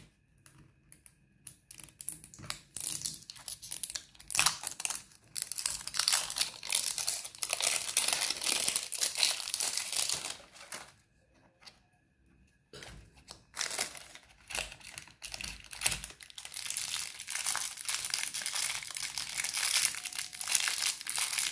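Thin plastic packaging of a L.O.L. Surprise toy ball crinkling and tearing as it is unwrapped by hand: a dense crackle that stops for about two seconds in the middle, then starts again.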